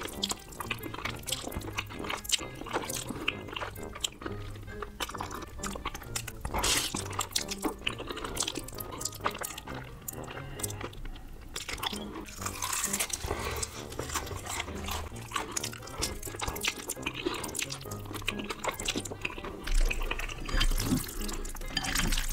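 Close-miked eating of saucy noodles: wet slurps, chewing and sticky mouth sounds with many small clicks and smacks. Background music with a bass line plays underneath.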